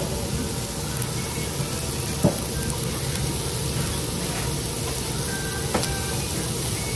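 Steady hiss of restaurant background noise, with a sharp knock about two seconds in, another near six seconds, and a few faint clinks of tableware.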